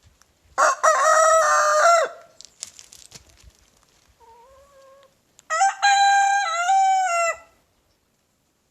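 Rooster crowing twice: one loud crow about half a second in and another about five and a half seconds in, with a fainter short call between them and light rustling clicks after the first crow.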